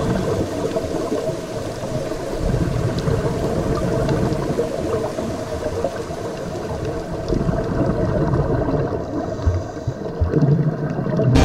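Muffled underwater sound recorded during a scuba dive: a low, steady wash of water noise with some bubbling.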